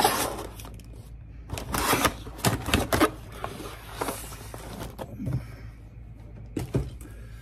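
Cardboard radio packaging being handled and opened: scraping and rustling, with several light knocks.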